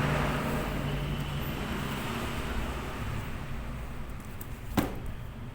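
A motor vehicle engine running steadily, with one sharp click near the end.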